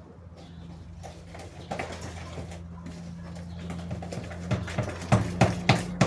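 A spoon beating batter in a bowl, with sharp knocks of the spoon against the bowl several times a second near the end, over a steady low hum.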